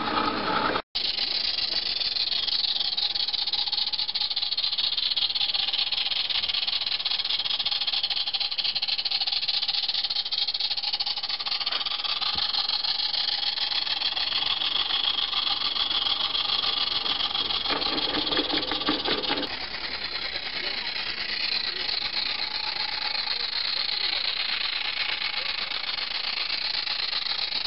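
Small 16mm-scale live-steam garden-railway locomotive running, with a steady hiss of steam and rattling from the train. Faint voices sit in the background.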